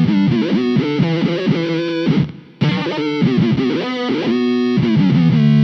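Electric guitar played through the RPS Effects Arcade Machine's harmonizer, which adds a perfect fifth above each note, with a distorted lo-fi tone. A run of short notes cuts out briefly about two seconds in, resumes, and ends on a loud held chord.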